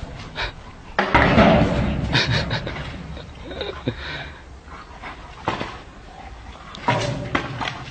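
A dog panting, with a few sharp knocks.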